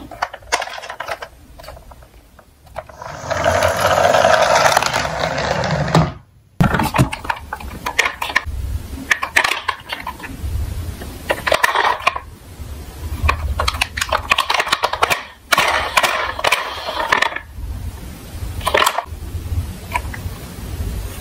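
Die-cast toy cars rolling down a slope and clattering, with a steady rolling run of a few seconds that stops abruptly, followed by a string of shorter rattling runs, clicks and knocks.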